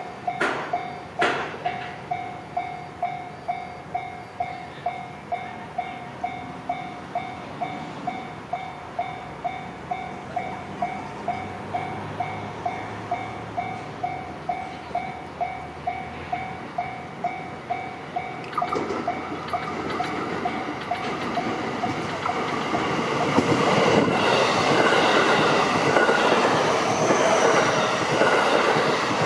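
Level-crossing warning bell ringing in an even beat of about two strokes a second. About 18 seconds in the ringing gives way to a train running past over the crossing, its wheels clattering, growing louder over the last few seconds.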